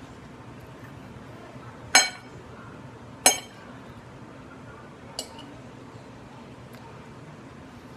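Metal fork clinking against a ceramic plate while eating: two sharp, ringing clinks a little over a second apart, then a lighter tap about two seconds later.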